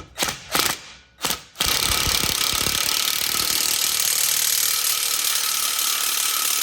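Ratchet wrench tightening a lower control arm bolt: a few separate clicks, then, about a second and a half in, a long unbroken run of fast, even ratcheting clicks.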